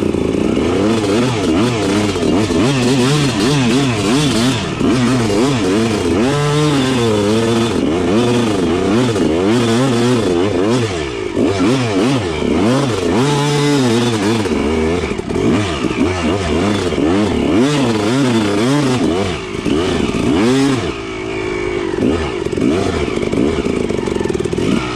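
Dirt bike engine revving up and down over and over, its pitch rising and falling every second or so as the rider works the throttle.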